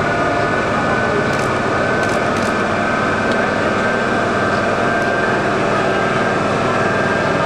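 Locomotive standing at the platform with its cooling blowers and electrical equipment running: a steady loud hum with a high whine held over it.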